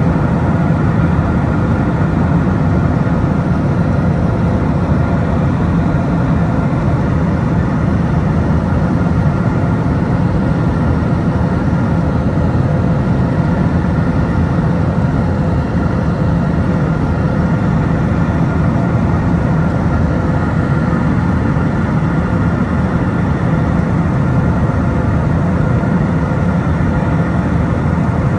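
Steady cabin noise in a Pilatus PC-24 business jet in flight: the deep rumble of its twin Williams FJ44 turbofan engines and the airflow, with a few faint steady whining tones above it, as the jet descends on approach.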